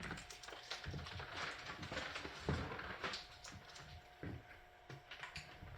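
Faint handling noises: scattered light taps and rustles as the used sublimation paper and tape are cleared away from the pressed MDF pieces, with a faint steady hum through the middle.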